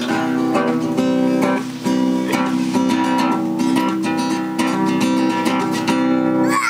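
Acoustic guitar strummed in a steady rhythm, the chords ringing on between strokes.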